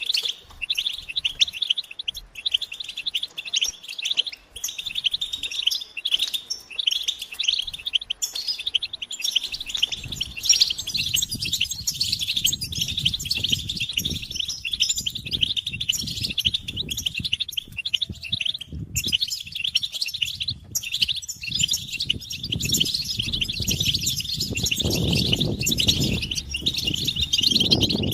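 A group of European goldfinches twittering together: dense, rapid, unbroken calls and song, the excited chatter of many birds used to stir a male into singing. A low rumbling noise runs underneath from about a third of the way in, growing stronger near the end.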